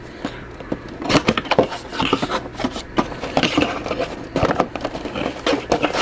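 Cardboard action-figure box being opened by hand: the taped end flap is worked loose and folded back, with a run of scrapes, crackles and small clicks of cardboard and plastic packaging.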